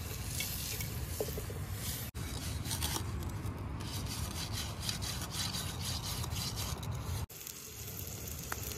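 A metal utensil rubbed and scraped against a stone, in repeated strokes. At the start and again near the end, a spoon stirring frying onions in an aluminium pot over a wood fire.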